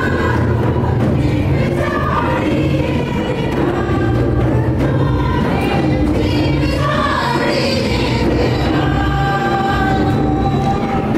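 A group of women singing a Sadri Christian welcome song together in unison, over a steady low musical accompaniment.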